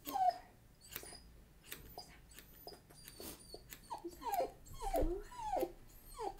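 Tibetan Terrier puppy whining in short falling whimpers, once near the start and then several in quick succession from about four seconds in, ticklish and fidgety at having its feet trimmed. Light clicks of steel grooming scissors snipping around the foot run underneath.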